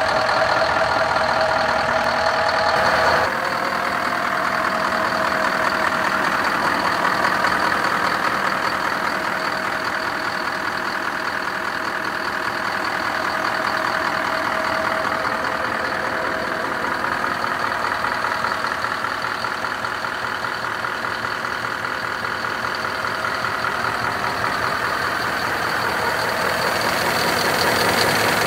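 Scania R500 truck's V8 diesel engine idling steadily. The sound eases a little about three seconds in, then runs on evenly with a thin steady high tone over the engine note.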